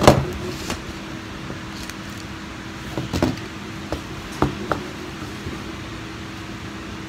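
Steady low hum of room noise, with a sharp knock right at the start and a few softer clicks and knocks about three and four and a half seconds in.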